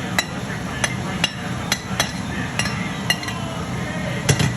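A metal cooking utensil knocking and clinking against a metal cooking pot while food is stirred: a series of sharp, ringing clinks, irregularly spaced, over steady background noise.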